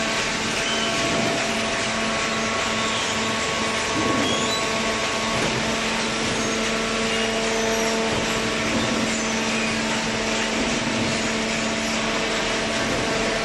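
Fully automatic vertical cardboard baler's hydraulic power unit running, a steady mechanical drone with a constant hum.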